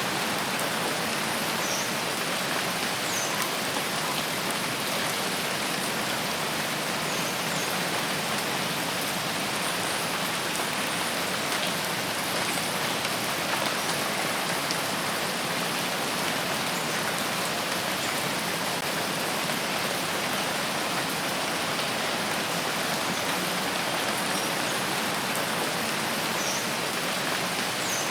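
Steady heavy rain falling, a dense, even patter of drops that holds at one level throughout.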